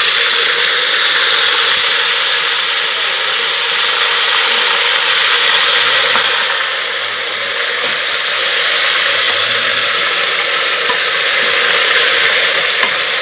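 Seasoned turkey neck sizzling as it browns in hot oil in a pot: a loud, steady frying hiss.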